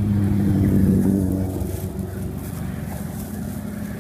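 A motor vehicle's engine passing close by, growing louder to a peak about a second in and then fading away.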